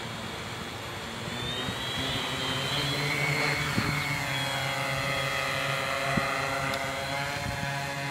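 Tarot FY680Pro hexacopter's six brushless motors (NTM 3536 910kv) on 12x3.8 propellers spinning up for takeoff about a second in, the whine rising in pitch as it lifts off. It then holds a steady motor whine and prop buzz in the hover.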